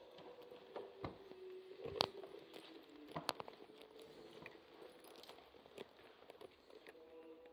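Faint footsteps and small handling knocks as someone walks across a hall floor, over faint steady tones. The loudest knocks come about two seconds in and just after three seconds.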